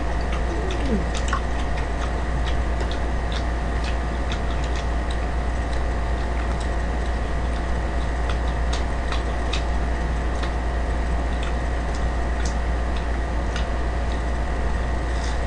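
Steady low background hum with faint, irregular small clicks and crunches of someone eating fried chicken, picking it apart with chopsticks.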